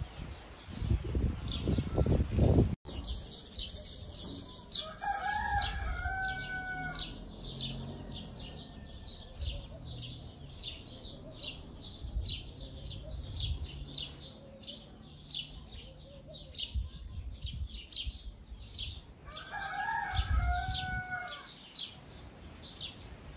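A rooster crowing twice, each crow about two seconds long. Steady high chirping runs at about two or three chirps a second throughout.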